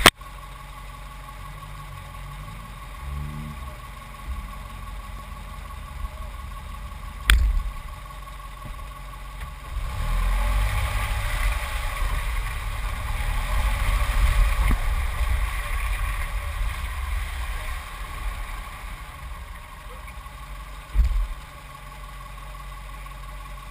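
2001 Subaru Impreza 2.5RS flat-four engine running, with the engine and tyres on wet dirt growing louder for several seconds from about ten seconds in as the car rolls. A sharp knock comes about seven seconds in, and a low thump near the end.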